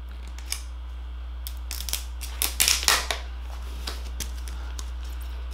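Fingers picking at the tear strip of the plastic shrink-wrap on a cardboard product box, making scattered crinkles and sharp clicks, loudest in a cluster a little past halfway.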